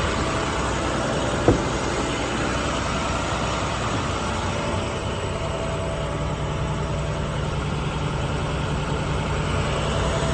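International DuraStar's MaxxForce diesel idling steadily, with a single sharp click about a second and a half in.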